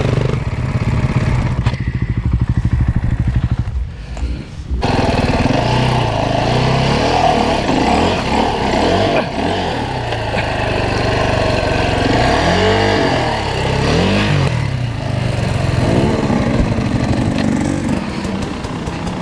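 Dirt bike engine idling, dipping briefly about four seconds in, then revving up and down with the throttle as the bike is ridden along the trail. Near the end there is a clatter as the bike goes down.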